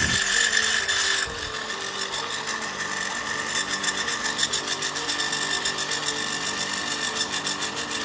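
A 2006 Crompton Greaves Mini Star-2 half-horsepower single-phase electric water pump running with a steady motor whine while water is poured into its priming port, and the water bubbles through the pump as it loads. A fast regular pulsing sets in a few seconds in.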